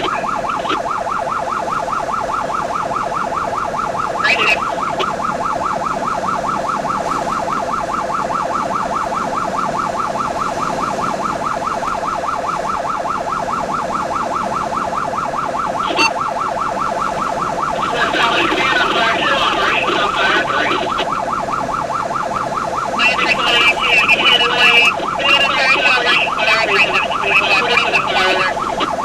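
Electronic emergency siren running continuously in a fast, even warble, heard from inside the responding vehicle. About eighteen seconds in, and again from about twenty-three seconds to near the end, a second, higher warbling tone joins it and the sound gets louder.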